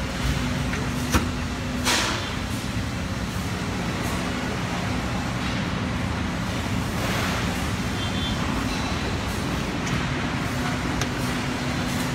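Steady machinery hum with a low held tone. A sharp click about a second in and a short rush of noise just after it fit the electrical cabinet door being unlatched and swung open.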